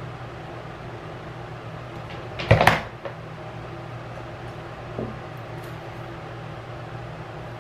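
Flat iron set down on a hard surface: a short double clunk about two and a half seconds in, then a lighter knock, over a steady low hum.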